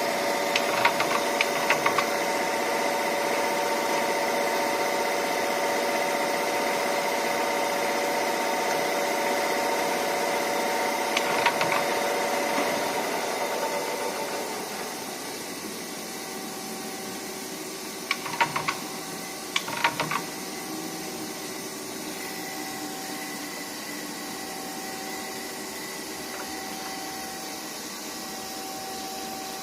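Murata MW100 twin-spindle CNC lathe running: a steady machine whine with a few short, sharp clanks, the whine dying away about halfway through, leaving a quieter hum with a faint tone that comes and goes and two more clusters of clanks.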